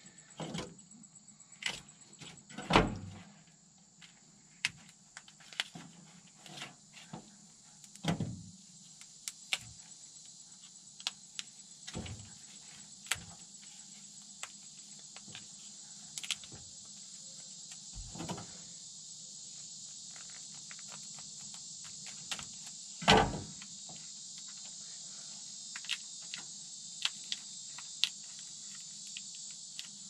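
Clicks, knocks and rustles of a truck's wiring harness being handled and pulled apart by hand, with a few louder knocks, over a steady high chirring of insects that grows louder partway through.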